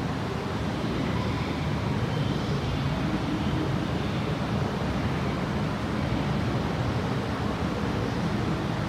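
MTR M-train rolling slowly through the station behind the platform screen doors at 22 km/h or less, held down by a speed restriction over a cracked rail: a steady low rumble.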